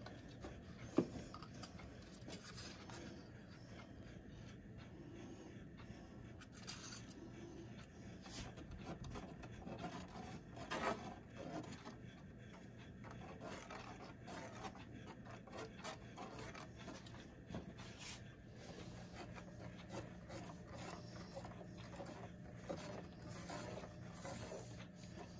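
Faint, irregular rubbing and scraping as a gloved hand works paint into wet epoxy on a board, with a sharp click about a second in and a low steady hum underneath.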